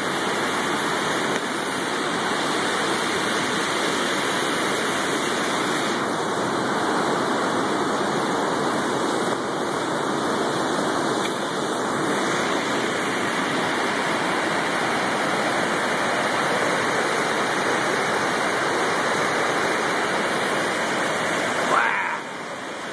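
Steady rushing of a large volume of water released through Hoover Dam's outlets.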